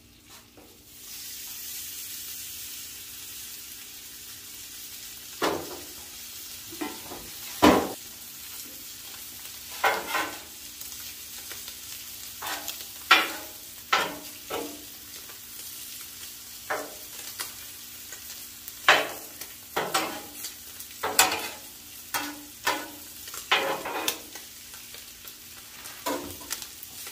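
Ribeye steaks and broccoli sizzling on a Blackstone flat-top griddle, a steady hiss that sets in about a second in. Over it come frequent sharp clanks and scrapes of metal tongs and a spatula on the steel cooktop.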